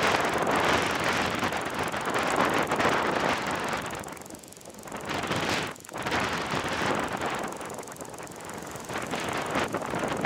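Strong, gusty wind blowing across the microphone. It rises and falls in gusts, with a lull about four seconds in.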